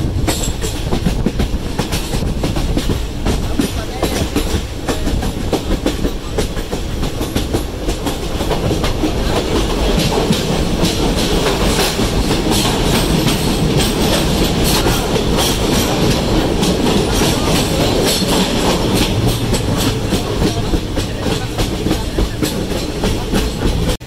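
Passenger train running on the track, heard from the open doorway of a coach: a steady loud rumble with wheels clattering over the rail joints, passing through a tunnel.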